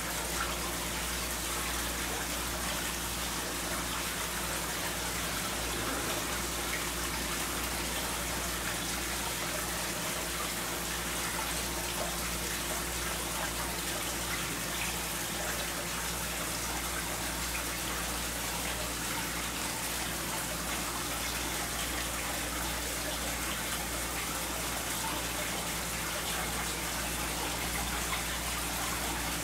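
Steady splashing and trickling of water running into a seawater fish tank, over a low steady hum.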